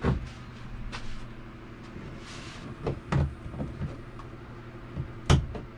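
Short knocks and clicks of a small plastic digital voltmeter being fitted and pressed into its cutout in a wooden RV wall panel. There is one knock about a second in, two close together around three seconds, and the sharpest click near the end, over a low steady hum.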